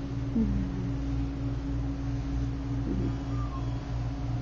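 Steady low mechanical hum with a constant droning tone. A faint short falling tone comes about half a second in.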